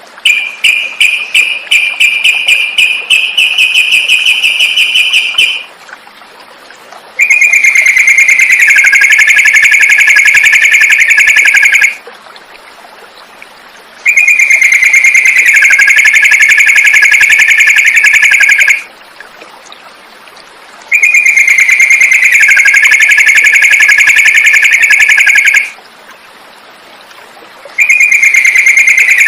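Yellow-vented bulbul (trucukan) song recording, loud. It opens with about five seconds of rapid chattering notes. Then the same long trilling phrase repeats four times with short pauses, as from a looped recording.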